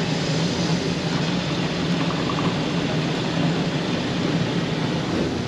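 Fully automatic coffee machine making a large cappuccino: a steady hum and hiss as it pumps and dispenses into the cup.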